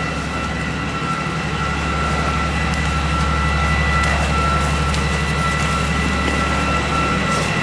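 A fire engine's diesel engine running steadily: a low drone with a thin, steady whine above it.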